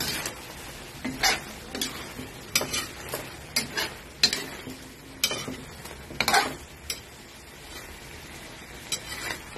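A spatula stirring and scraping shrimp around a metal pan, in irregular strokes about once or twice a second, over the steady sizzle of the frying sauce.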